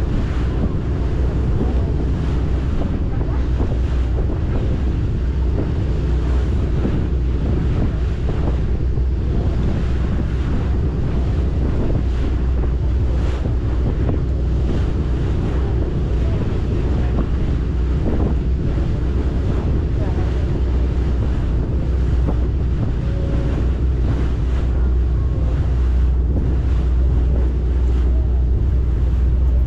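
Boat engine running steadily with a low drone, under water rushing past the hull and wind buffeting the microphone.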